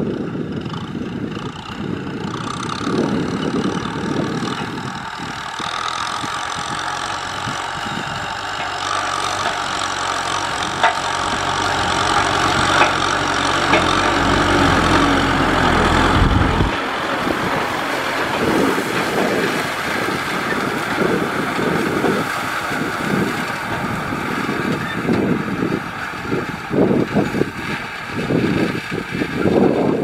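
Kubota M6040SU tractor's four-cylinder diesel engine running under load as it pulls a disc plough through dry, sandy soil. Its steady note is clearest in the middle and breaks off abruptly about 17 seconds in. After that the sound is an uneven, fluttering rumble.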